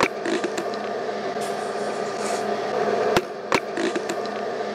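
Cell phone call audio: steady line hiss and electronic hum with a sharp click at the start and two more a little after three seconds in.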